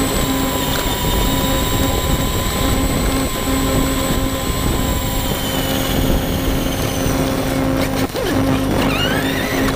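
Electric RC monster truck's motor and geartrain whining steadily as it drives over grass, with a few knocks about eight seconds in and the whine sweeping up and down near the end as the throttle changes.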